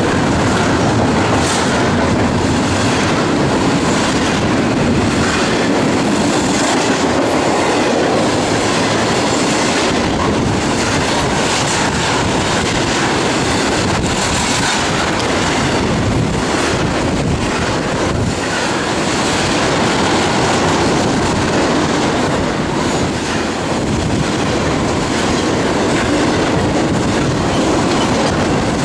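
Loaded intermodal freight cars, carrying stacked containers and then truck trailers, rolling past at close range. It is a loud, steady noise of steel wheels on rail, with wheels clicking over the rail joints.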